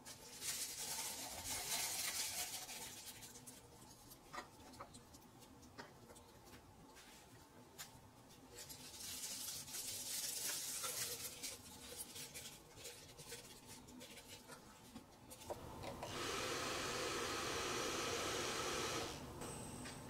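Foil-faced bubble insulation crinkling and rubbing against a plastic ABS tube as it is handled and fitted inside, in scattered rustling spells. Near the end a steady, even noise runs for about three seconds and then stops suddenly.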